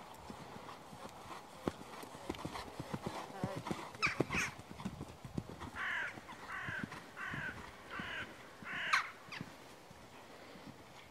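Hoofbeats of a ridden horse moving over an arena's sand footing. A bird calls twice about four seconds in, then gives a run of five or six evenly spaced calls, about two a second, toward the end.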